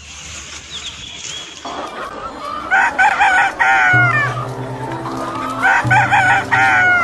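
A rooster crowing twice, about three seconds apart, each crow a few short notes ending in a long wavering note. Background music with low held notes comes in under it about four seconds in.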